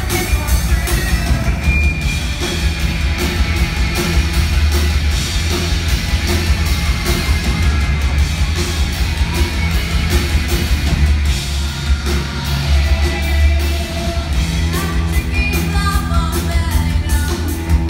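Rock band playing live and loud: steady drumming over a heavy bass, with singing heard at times.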